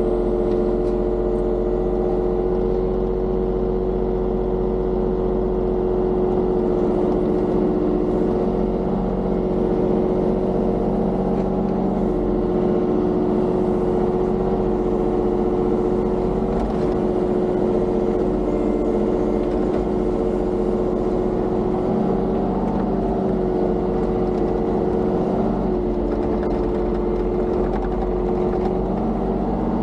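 Mini excavator's diesel engine running steadily under working load, with a constant droning hum that shifts slightly now and then.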